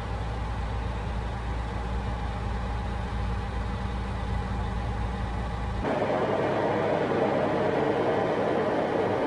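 Freightliner Inspiration heavy truck heard from inside the cab: a steady low engine hum, which about six seconds in gives way to a rougher, noisier rumble of engine and road.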